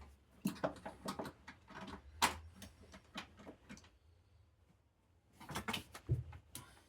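Irregular clicks and light knocks of hand work on plastic wiring-harness parts, in two clusters with a short lull between them and a dull thump near the end.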